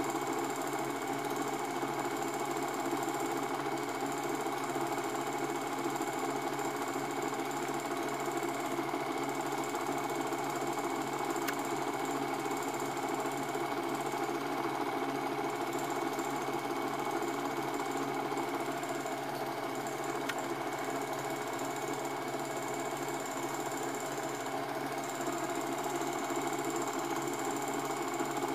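Cine film projector running: a steady, unbroken mechanical noise with a faint high whine.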